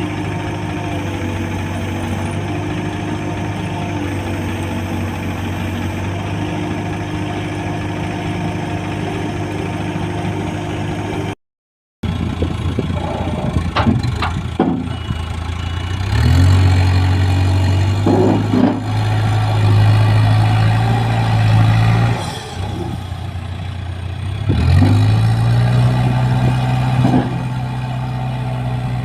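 Heavy diesel engine running steadily, then revving up under load twice for a few seconds at a time, with scattered metal knocks and clanks of digging machinery.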